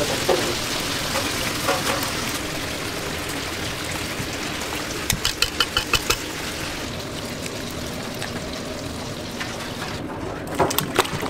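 Wire whisk stirring a liquid chilli mixture in a stainless steel bowl, clinking against the metal about six times in quick succession, over a steady rushing background noise.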